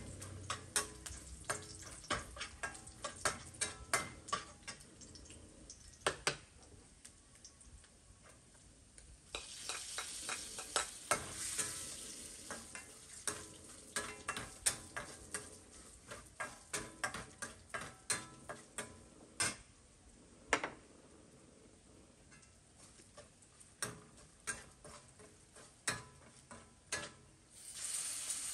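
Metal spatula scraping and tapping in a steel wok on a portable gas burner, in quick irregular clicks. Hot oil sizzles loudly about nine seconds in and again near the end, as food is tipped into the wok from a plate.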